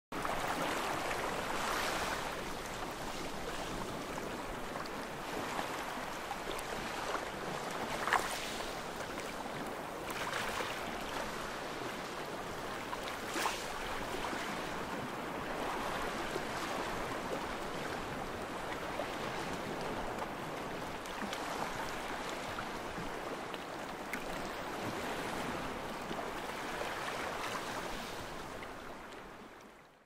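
Low ocean surf washing onto a flat sand beach, a steady rush that swells and eases every few seconds. There are a couple of short sharp clicks about 8 and 13 seconds in, and the sound fades out near the end.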